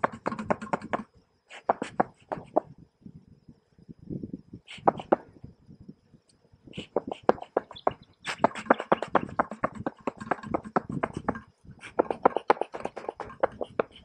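A bee smoker's bellows squeezed again and again, puffing smoke over the frames, heard as bursts of quick puffs and clicks with short pauses between the bursts.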